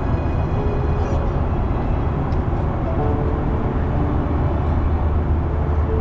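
Airliner cabin noise in flight: a steady, loud low rumble of the engines and rushing air.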